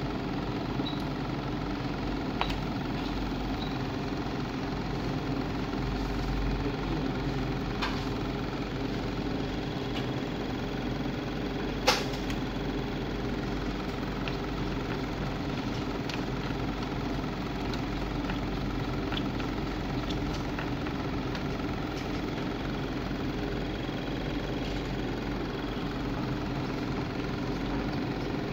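Steady machine hum from a powered-on ISA T3000 transformer test set, with a few sharp clicks from its controls being worked; the loudest click comes about twelve seconds in.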